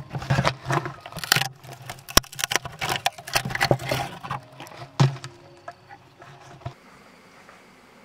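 A pole knocking and scraping inside a hollow rotten tree trunk, loosening and breaking off rotten wood in a rapid, irregular clatter, with sharp knocks about two and five seconds in. The knocking stops near the end.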